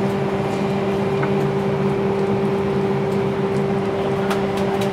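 A steady machine hum with two constant low tones over an even noise, and a few faint ticks near the end.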